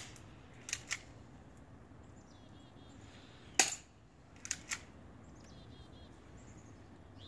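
An airsoft pistol firing a single sharp crack about three and a half seconds in. Pairs of lighter clicks come about a second after each shot, once near the start and again about four and a half seconds in, with faint bird chirps between.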